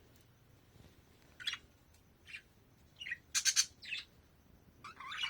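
Budgerigars chirping: a few short chirps, then a louder cluster of calls about three and a half seconds in, and quick chattering near the end.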